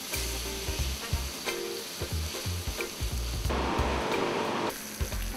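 Beef sizzling as it is seared briefly at high heat in a frying pan, browning and crisping the outside.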